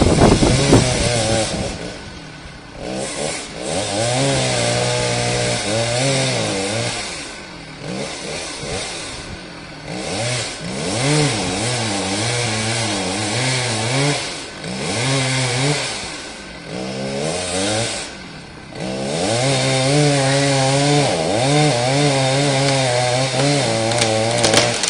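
Tree creaking: a buzzy, groaning tone whose pitch wavers up and down, coming in four long stretches of a few seconds each, over a steady rush of noise.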